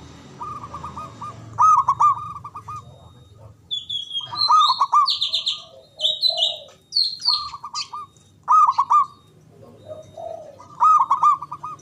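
Zebra dove (perkutut) cooing: phrases of quick staccato coos repeated every couple of seconds, with other small birds chirping higher-pitched in between.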